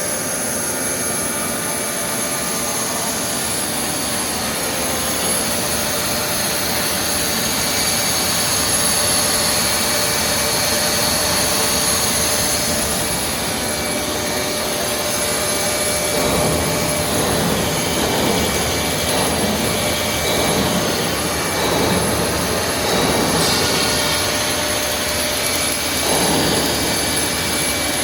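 Air bubble film extrusion line running in production: a steady, dense machine whir with several high, steady whines. About halfway through, irregular swells of lower noise join in.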